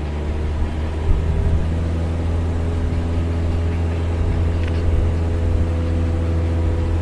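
Large diesel engine of a mining dump truck running steadily, a deep, even engine note.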